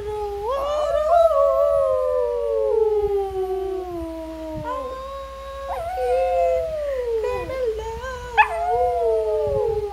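Shih tzu howling: several long drawn-out howls, each sliding slowly down in pitch.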